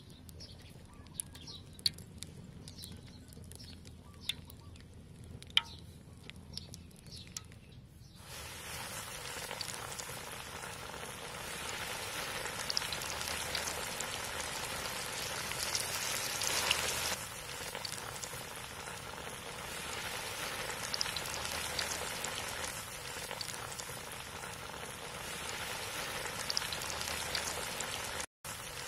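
A few sharp clicks over a quiet background, then from about eight seconds in the steady, dense sizzle of flour-coated pork ribs deep-frying in hot oil in a wok. The sizzle is loudest about halfway through and cuts out briefly near the end.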